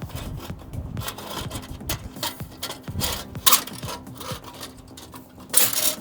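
Metal scraping, rubbing and clicking as a motorcycle exhaust pipe is worked loose and slid off its mounting, with a louder scrape about three and a half seconds in and another near the end.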